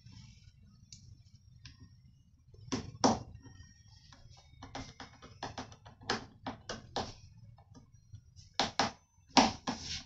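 Irregular sharp clicks and taps of a screwdriver and hard plastic as the cable cover is fitted and screwed back onto the rear of an air fryer's plastic housing. The loudest knocks come about three seconds in and again near the end.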